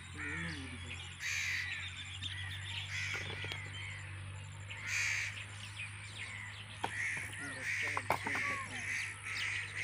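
Crows cawing over and over, the calls coming closer together toward the end, over a steady low hum, with a few sharp knocks near the end.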